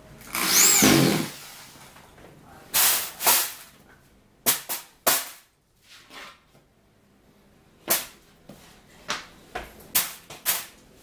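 Corded electric drill driving a screw into a drawer panel in one short burst, its motor whine rising and then falling. After it come a series of sharp knocks and clatters as the drawer panels are moved and laid down.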